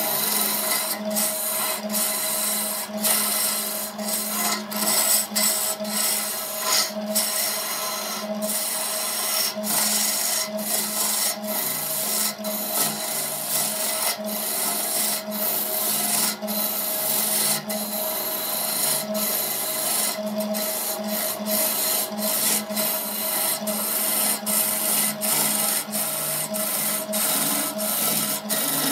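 Wood lathe running with a steady motor hum while a hand-held chisel cuts into the spinning wooden vase blank, giving a continuous rasping hiss of shavings that breaks off briefly many times.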